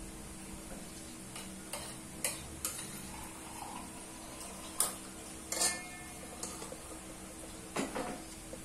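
A spoon clinking and scraping against a plate or bowl during eating: irregular light clicks and knocks, the loudest about five seconds in, over a steady low hum.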